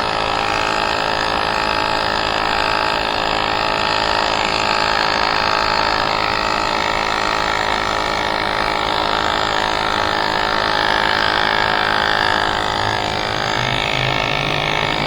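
Small electric tire inflator running steadily, pumping air into a flat e-bike front tire.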